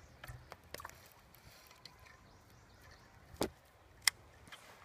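Light clicks and knocks from a baitcasting rod and reel being handled close by, with a louder knock about three and a half seconds in and a sharp click just after four seconds.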